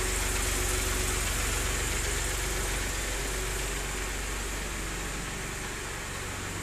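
Massey Ferguson 7250 DI tractor's three-cylinder diesel engine idling steadily.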